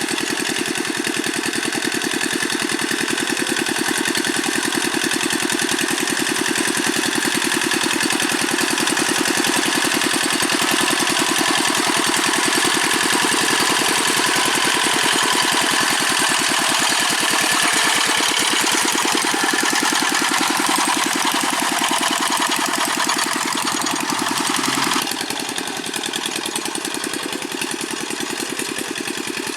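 Old single-cylinder Dongfeng diesel engine of a Quick G600 hand tractor running steadily under load while levelling paddy soil. The level drops suddenly a little about five seconds before the end.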